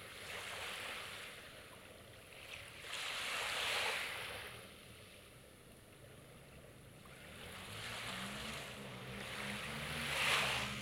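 Sea waves breaking and washing up the shore in slow swells, loudest about three to four seconds in and again near the end. A low motor hum comes in during the last few seconds.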